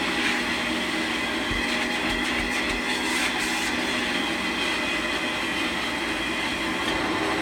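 Vintage Hamilton Beach Deep Clean canister vacuum cleaner running steadily, a motor drone with a steady high whine over the rush of air. Its bearings are a little noisy, typical of an older vacuum, and the motor has an unusual sound that the owner can't place.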